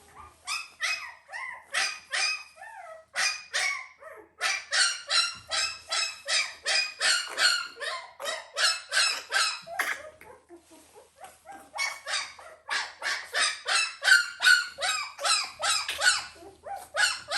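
Unweaned puppy crying: a rapid string of short, high-pitched yelps, two or three a second, in three long bouts with brief pauses about four seconds and ten seconds in.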